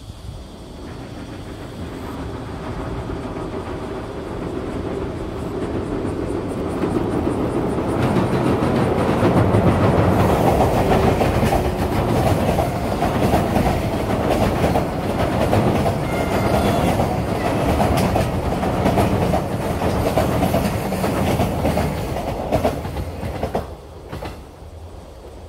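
Container freight train hauled by an EF81 electric locomotive crossing a steel girder railway bridge. The sound of its wheels on the bridge builds from the start, stays loud from about eight seconds in as the container wagons pass, then drops away quickly near the end.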